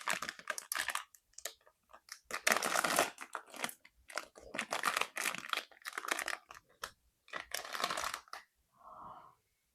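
Plastic packaging of a blind-box figure crinkling and tearing in several bursts of crackles as it is unwrapped by hand.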